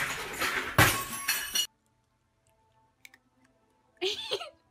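A loud crash and clatter as a dog tumbles off a seat and knocks things over, with a sharp bang about a second in. It cuts off abruptly after about a second and a half.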